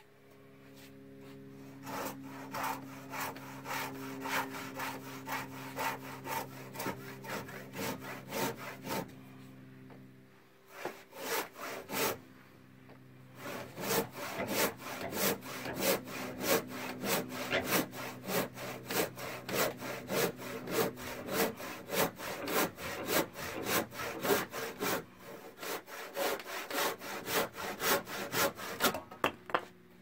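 Hand saw cutting across a thick rough-sawn wooden timber in steady back-and-forth strokes, about one and a half a second. The sawing pauses about a third of the way in, picks up with a few short strokes, then settles back into a steady rhythm.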